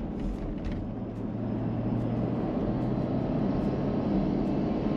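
Toyota LandCruiser 200 Series towing a caravan on the road: steady engine hum and road noise, getting a little louder about a second and a half in.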